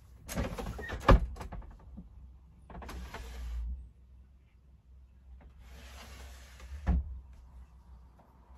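Motorhome doors and fittings being closed up: a clatter ending in a sharp knock, then two hissing runs of about a second each, the second ending in a thump.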